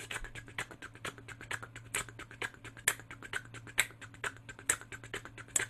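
Rapid dry 't-t-t-t' tongue ticks made with the mouth alone: the T-consonant articulation of a harmonica train rhythm, with a stronger accented tick about once a second.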